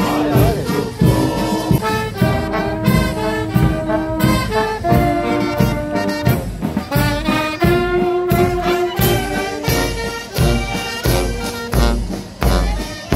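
Military marching band playing as it passes: trumpets, saxophones and sousaphones carry the tune over a steady drumbeat from bass drum and cymbals. The low bass-drum beats get heavier near the end.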